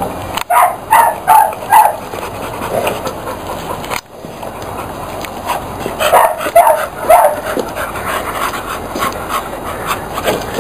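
A dog barking in two short runs: about four barks soon after the start, then three or four more around six to seven seconds in.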